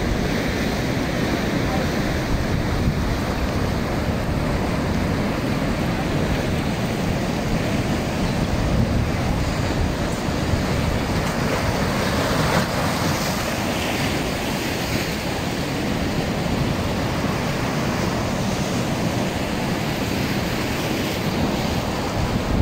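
Ocean surf breaking and washing over rocks in a steady, continuous rush, with wind on the microphone.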